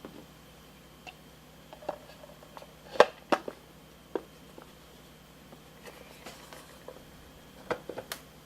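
Scattered light clicks and taps of small plastic toy parts and packaging being handled. Two sharper knocks come about three seconds in, and a quick run of taps near the end.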